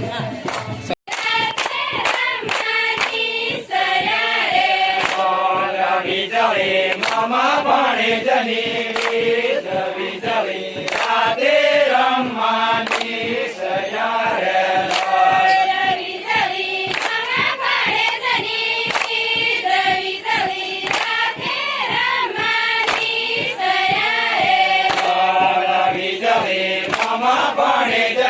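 A group of voices singing a chant together, over a steady beat of sharp percussive strikes. The sound cuts out for an instant about a second in.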